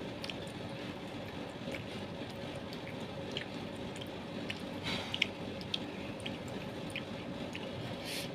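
Close chewing and wet mouth sounds of someone eating grilled meatballs, with many small smacks and clicks scattered through and a short louder smack about five seconds in, over a steady background hum.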